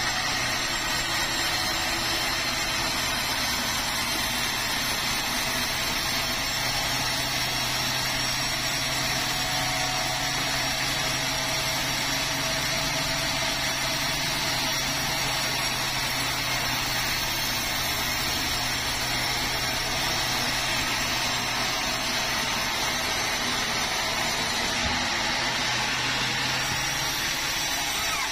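Sawmill machinery running steadily, an engine or motor holding an even speed with a constant low hum and no change in load.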